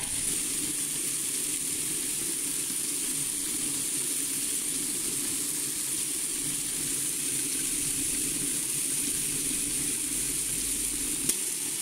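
Electric star roller running, its drum turning and tumbling dry rice puffs with a steady rustle over the motor's hum. A single light click near the end.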